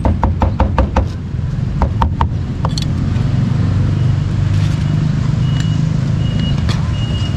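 Cleaver chopping meat on a board in quick, even strokes, about six or seven a second, stopping about a second in, followed by a few single chops. Then the steady low rumble of a vehicle engine running.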